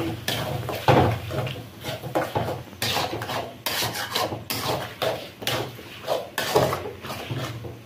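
Metal spatula scraping and knocking against an aluminium kadai in repeated strokes, stirring onions and capsicum in sauce while a cornflour slurry is mixed in to thicken it.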